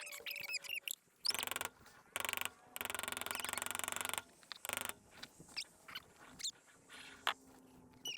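A power tool, most likely an impact wrench on the differential pinion nut, runs in four short bursts, the longest about a second and a half. Between the bursts come short high chirps from small birds.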